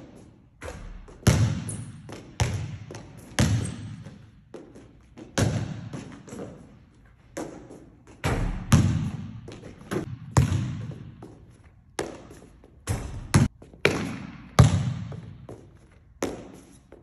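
Basketball bouncing on a gym court floor: about a dozen irregular thuds, each with an echoing tail in the large hall.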